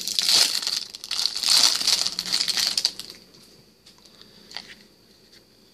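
Clear plastic wrapper of a trading-card starter deck crinkling and tearing as it is pulled open, for about three seconds; then quieter, with a few faint ticks as the cards are handled.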